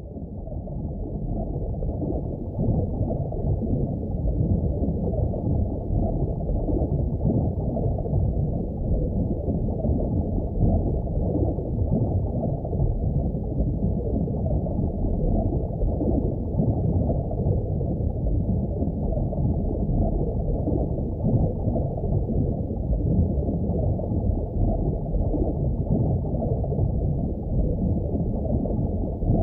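Steady, muffled underwater ocean rumble and wash, all low and dull with no clear calls standing out, fading in over the first couple of seconds.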